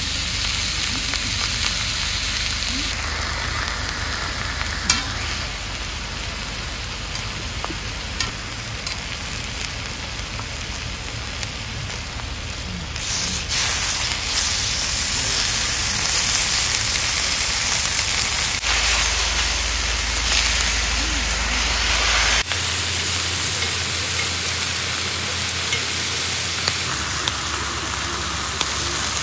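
Pork belly sizzling and frying on a hot cast-iron griddle: a steady, dense hiss that grows louder about halfway through, with a few light clicks.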